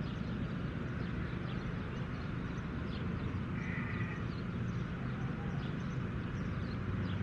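Fancy pigeons with a steady low background rumble, scattered short high chirps throughout and a brief higher tone about three and a half seconds in.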